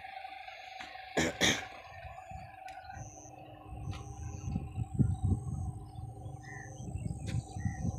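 Birds chirping in short calls several times in the open farmland, over a low, uneven rumble. Two brief bursts of noise come just after a second in.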